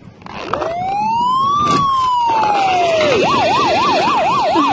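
Electronic siren of a Tonka toy police car: one wail rising and falling, then, about three seconds in, switching to a fast up-and-down yelp of about three cycles a second.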